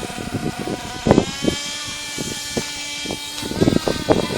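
Small 3.0 cc nitro engine of a 1/8-scale RC buggy running at a high, steady pitch, rising about a second in and then holding. Irregular knocks and clatter sound over it throughout.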